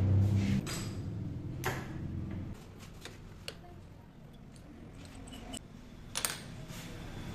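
Metal lathe running down after being switched off, its hum dropping away in the first second or two. After that come a handful of sharp metal clicks and clinks from a chuck key being turned in the lathe chuck, the loudest near the end.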